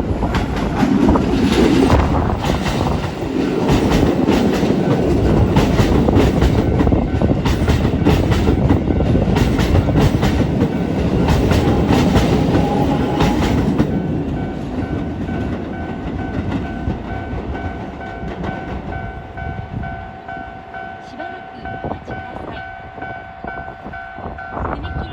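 Keisei 3000 series electric train passing at close range, its wheels clattering rapidly over the rail joints for about fourteen seconds before the sound tails off. As it fades, the level-crossing warning bell is left ringing, a steady two-tone alarm.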